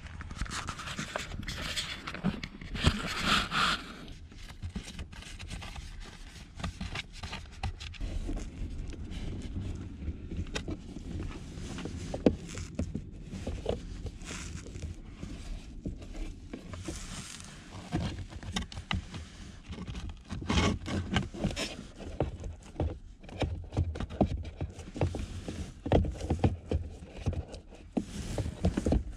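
Handling noise: irregular scraping, rustling and plastic clicks of hands working a cabin air filter and its plastic housing under the dashboard. It is louder about two to four seconds in and again near the end, as the filter is slid into place.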